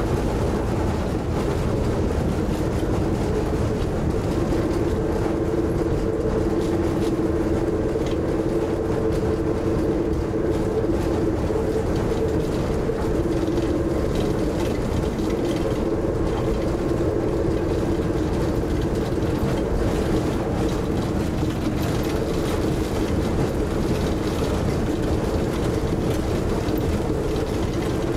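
Nanbu Jūkan Railway diesel railbus running steadily along the line, heard from inside the cabin: an even engine and running drone with a steady two-note hum.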